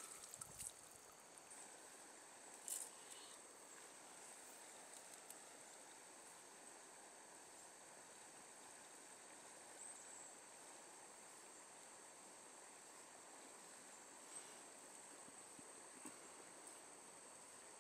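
Near silence: faint stream ambience, a steady low wash of water with a steady high insect drone over it, broken by a few faint clicks.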